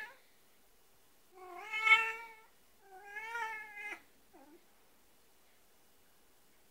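Persian cat meowing twice: two drawn-out calls of about a second each, then a short faint one just after.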